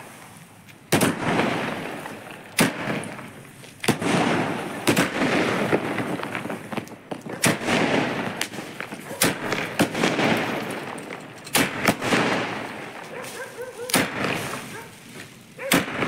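Aerial fireworks bursting overhead: about a dozen sharp bangs, one every second or two, each trailing off into a crackling fizz of falling sparks.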